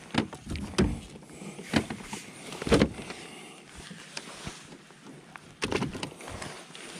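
Scattered knocks and thuds against a plastic kayak hull, with rustling in between, as a freshly caught fish and a landing net are handled in the footwell: about four separate knocks in the first three seconds, then a short cluster of them near the end.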